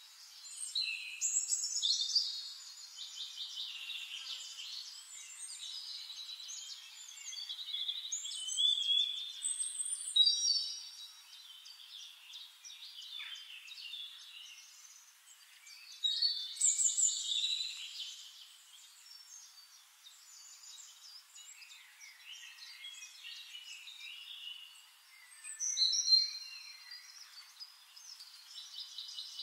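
Songbirds chirping and trilling, several calls overlapping, with louder phrases every several seconds.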